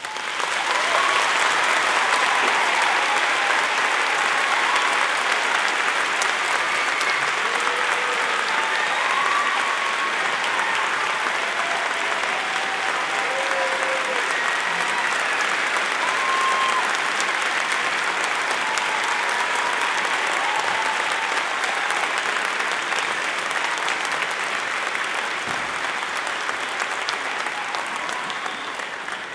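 Audience applauding with sustained clapping and a few voices calling out over it; the applause thins out toward the end.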